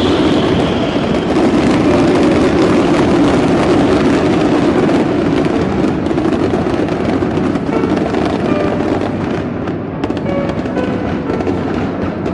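Fireworks display going off continuously: a dense run of crackles and bangs, with music playing alongside.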